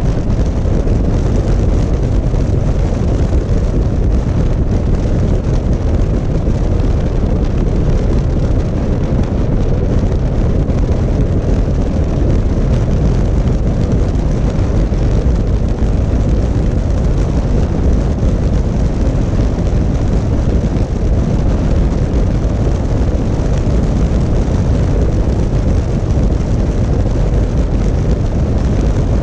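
Steady, loud low rush of wind and road noise on the microphone of a camera riding on a moving motorcycle, unchanging throughout.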